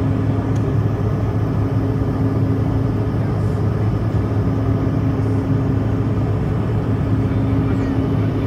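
Steady, even drone of an airliner's engines and airflow heard inside the passenger cabin during the climb after takeoff, with a constant low hum.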